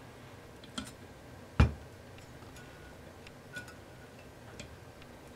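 Small metal clicks and taps of a Jet Lock fence head's parts being worked by hand while a spring is fitted into the casting, with one sharp knock about one and a half seconds in.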